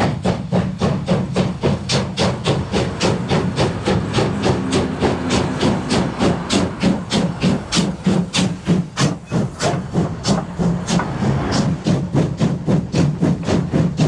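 Steam locomotive working a freight train: a steady, even run of exhaust chuffs, about four a second, over the rumble of the train.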